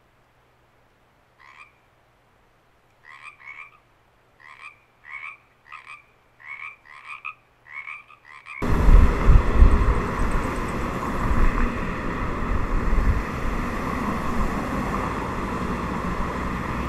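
Frogs croaking: about a dozen short croaks, irregularly spaced and coming closer together. A little past halfway the sound cuts suddenly to loud, steady traffic noise at a road intersection, a low rumble under a hiss.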